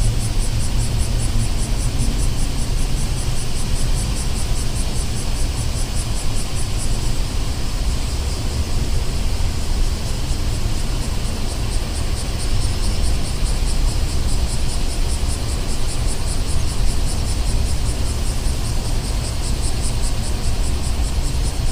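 Night-time city street ambience: a steady low rumble of distant traffic. A fast, even high-pitched pulsing runs over it, dropping away for a few seconds around the middle.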